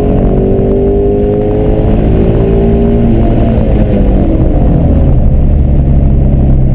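Shelby GT350's 5.2-litre flat-plane-crank V8, heard from inside the cabin, pulling hard with its pitch climbing. About three seconds in the revs drop away, and the engine runs on at a lower, steadier pitch.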